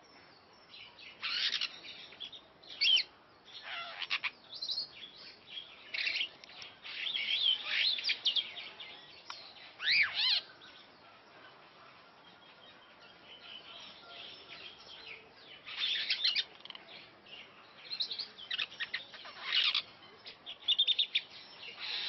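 Superb starling singing: a rambling run of chirps, squeaky whistles and quick rising and falling notes in uneven bursts. It is quieter and sparser for a few seconds in the middle, then busy again near the end.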